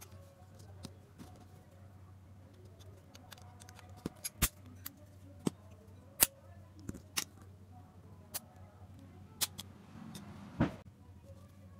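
Irregular sharp clicks and snaps of a small DC motor and its circuit board being handled and pried apart by hand, over a low steady hum, with a short rustle into a louder click near the end.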